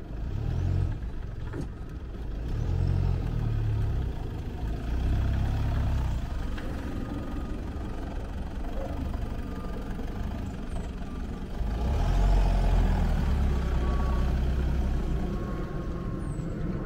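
A car pulling away while towing a small caravan: engine and road noise, with a low rumble that swells and fades unevenly.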